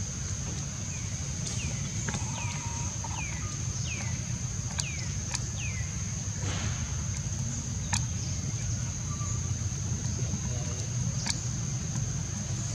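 Outdoor ambience: a steady low rumble under a thin, steady high-pitched whine, with a quick run of about six short falling chirps a couple of seconds in and a few sharp clicks scattered through.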